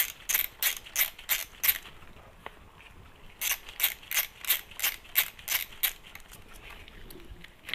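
A socket ratchet clicking in two runs of quick, even clicks, about three a second, as the last crankcase bolt of a Yamaha R1 engine is run down, with a few lighter ticks near the end.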